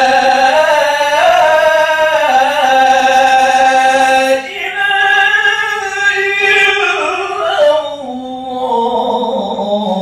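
A muezzin's voice chanting the adhan, the Islamic call to prayer: long held, ornamented notes that bend and turn in pitch, with a brief breath about four and a half seconds in before the next phrase, which settles lower near the end.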